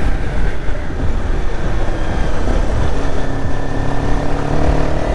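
Honda CBR250R's single-cylinder engine running steadily at riding speed, heard under heavy wind and road noise on the rider's microphone.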